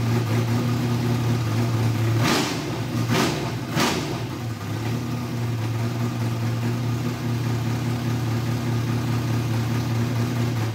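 Carbureted dry-sump V8 race engine idling, blipped three times in quick succession about two to four seconds in, then settling back to a steady idle. It has just been started after its dry-sump oil pump was primed.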